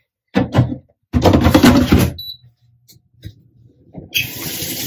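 Clatter of the air fryer basket and metal tongs as the basket is handled and pushed back into the unit, followed by a short high beep. Near the end a kitchen tap is turned on and water runs steadily.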